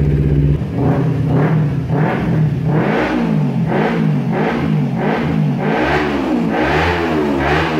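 Kawasaki Ninja 250R's parallel-twin engine idling, then revved in quick throttle blips about twice a second, each rev rising and falling in pitch.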